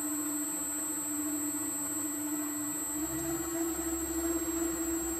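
Electric motor driving the worm-drive gearbox and crank of a home-built powered lathe slotter, running smoothly with no load as the ram strokes back and forth. The steady hum steps up slightly in pitch about three seconds in.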